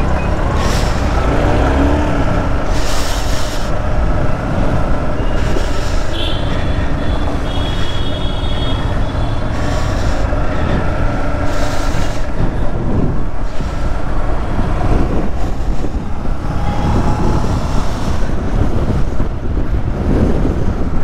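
Yamaha R15 sport motorcycle's single-cylinder engine running as it rides through slow traffic, under a steady loud rumble of wind and road noise on a helmet or bike-mounted microphone. A brief high steady tone sounds about six seconds in.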